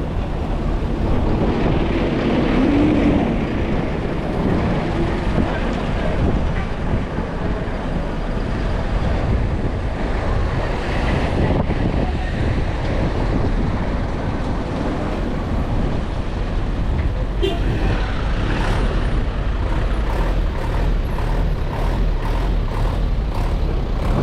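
Road traffic with a heavy truck's engine running close by, a steady low rumble.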